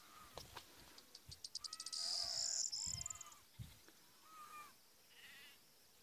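Small birds singing in open farmland, with sheep bleating at intervals. The loudest sound is a high, rapid trill of quick notes that speeds up about two seconds in.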